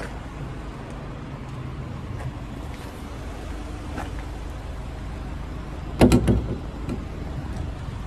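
A van's engine running at idle with a steady low hum. About six seconds in, a short burst of knocks and clatter comes from the side door of the refrigerated box.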